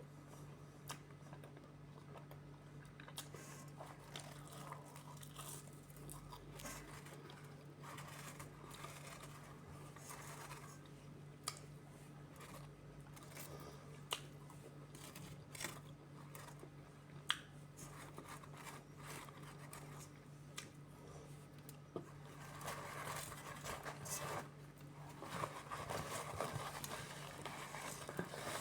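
A person eating: chewing with scattered crunches and small sharp clicks, getting busier and louder near the end.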